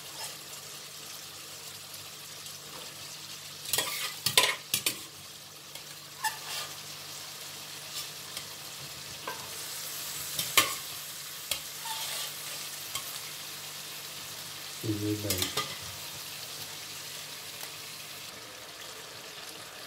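Masala sauce with boiled black chickpeas sizzling steadily in an aluminium pan. A spoon gives a few sharp clinks and scrapes as more chickpeas are spooned in from the pot and stirred.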